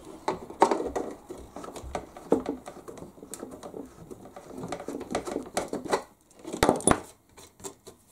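A hand tool scraping and clicking in a small hole in a plastic model-boat hull, enlarging it so the rudder push rod moves freely. The strokes are irregular and short, with a louder cluster of clicks about two-thirds of the way through.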